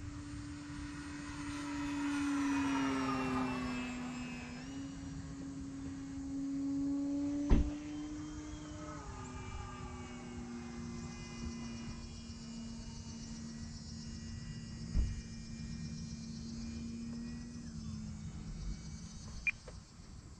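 Brushless electric motor and 12x7.5 propeller of an FMS Ranger 1.8m RC plane droning in flight, its pitch falling as it passes by a few seconds in and again about nine seconds in. Wind rumbles on the microphone, with two sharp knocks midway.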